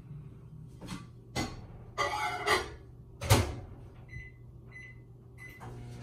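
Handling noise as a gloved hand reaches into a small potted lemon tree: several short rustles and knocks among the leaves and branches, the loudest a sharp bump about three seconds in. In the last two seconds there are three brief, faint high tones.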